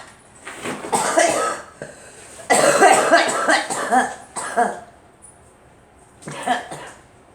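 A girl coughing in a fit. There is a short bout about half a second in, then a longer run of rapid coughs from about two and a half to five seconds, and a last short bout near the end.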